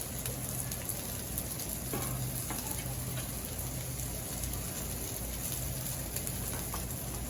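Steady sizzling on a Blackstone flat-top griddle, with a few light clicks scattered through it.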